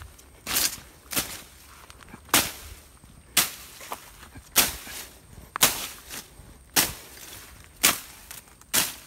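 A blade slashing through grass and weeds in sharp swishes, about one stroke a second.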